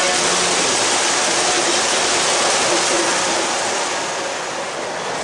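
Lionel Legacy Acela O-gauge model train running past at high speed, a steady rushing noise of wheels on the three-rail track that fades somewhat as the train moves away near the end.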